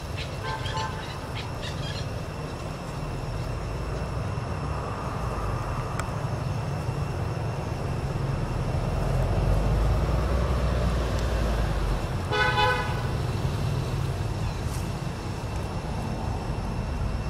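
A short vehicle horn toot, one flat steady tone lasting about half a second, a little past twelve seconds in, over a steady low rumble of outdoor traffic.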